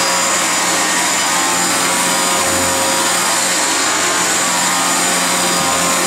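Dyson DC28 Animal upright vacuum cleaner running steadily on carpet: a loud, even rush of air with a thin high whine on top.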